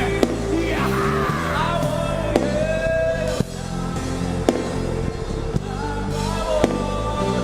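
Live band music: a sung or instrumental melody over steady bass notes, with sharp drum hits about every two seconds.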